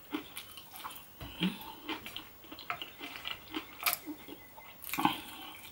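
A person chewing and biting chips (fries), with scattered soft mouth clicks and two sharper clicks near the end.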